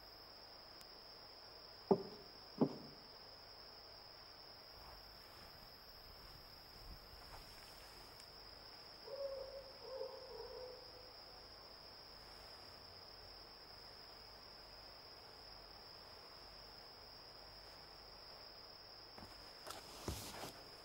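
Night ambience of crickets chirping steadily, with a short owl hoot in several notes about nine seconds in. Two sharp knocks come about two seconds in, and footsteps near the end.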